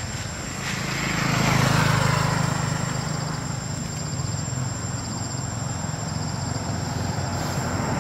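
A motor vehicle passing on the road, its engine hum and tyre noise swelling to a peak about two seconds in, then easing back to a steady low hum.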